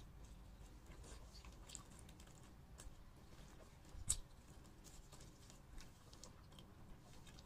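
Faint eating sounds: chewing roast chicken, with small clicks and rustles of plastic-gloved hands pulling apart chicken and potatoes in a takeout box. One sharper tap about four seconds in.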